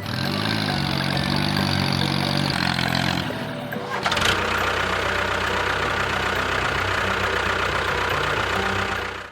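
An engine starting, its pitch rising briefly, then running steadily. About four seconds in the sound changes to a denser, busier running note.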